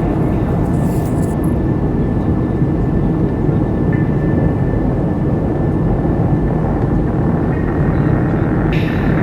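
Loud, steady low rumbling roar with a faint thin whine held above it.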